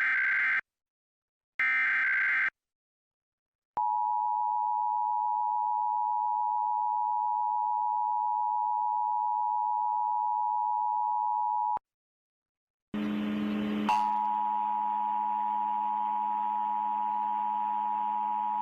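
Emergency Alert System tones: the end of one screeching SAME header data burst and then a second burst about two seconds in, followed after a short pause by the two-tone EAS attention signal, held steady for about eight seconds. After a second of silence, another steady, buzzier alert tone with hiss starts and runs on.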